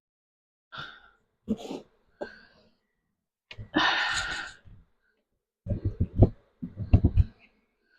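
Wooden beehive parts being handled and set down: a few short scuffs, a breathy whoosh about three and a half seconds in, then two quick clusters of knocks as the wooden pieces bump together.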